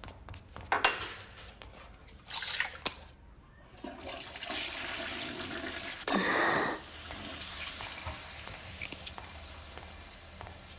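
Water rushing steadily, like a toilet flushing or water running down a drain, setting in about four seconds in and running on. Just after six seconds comes the short hiss of a puff from an asthma inhaler, and before the water there are two brief breathy sounds.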